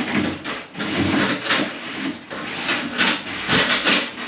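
Cord or cable being pulled by hand down through a downlight hole in a plasterboard ceiling, scraping and rustling in a string of uneven pulls.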